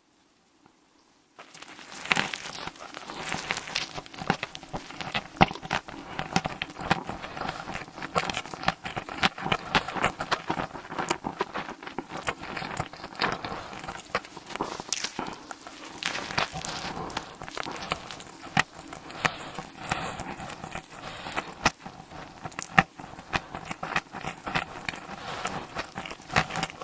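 Close-miked eating: dense, crackly chewing and biting mouth sounds, starting about a second and a half in after near silence.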